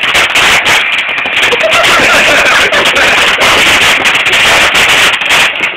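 A firework going off with loud, dense crackling packed with rapid pops, running on without a break.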